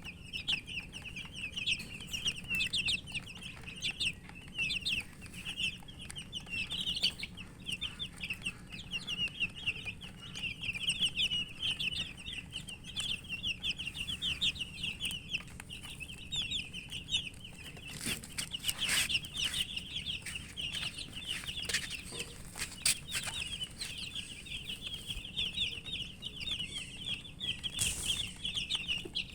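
A brood of chicks peeping continuously, many short, high, falling peeps overlapping, with a few sharp clicks or taps in the middle and near the end.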